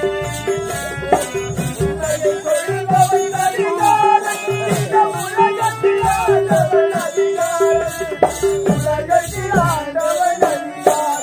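Live folk music from a village-drama stage band: hand drum strokes and a wavering melody line over a note that pulses about twice a second, with a fast, steady high rhythm of about three strokes a second on top.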